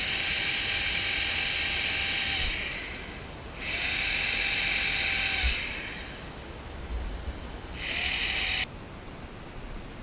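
Corded electric drill boring holes through 4-inch PVC pipe, three times. The first two runs last about two seconds each and wind down afterwards; the third is short and stops suddenly near the end.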